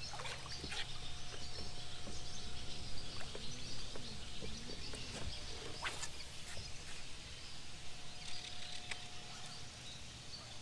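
Open-air ambience: a steady low hum with a thin, steady whine above it, and scattered light clicks and faint chirps.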